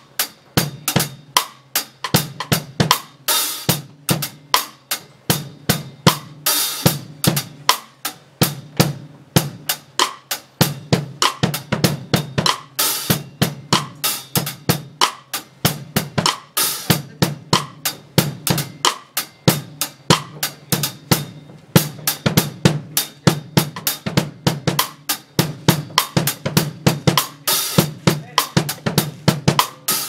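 Acoustic drum kit played in a steady sound-check groove: kick and snare strokes several times a second, with cymbal crashes every few seconds.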